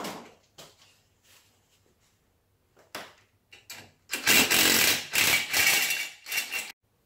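Cordless drill-driver unscrewing the fixing screw of a steel radiator bracket from the wall, running in three short bursts in the second half, after a few light clicks of the tool being fitted to the screw.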